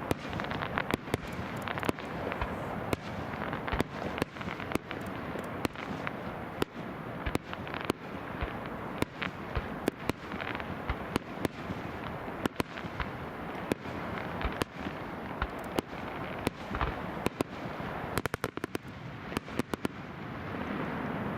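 Fireworks display: shells bursting in a steady series of sharp bangs over a continuous dense crackle, with a rapid cluster of reports near the end.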